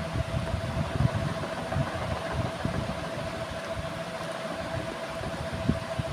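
Steady hum of a running electric fan, a constant mid-pitched tone over an even hiss, with irregular soft low bumps from bananas being peeled and eaten close to the microphone.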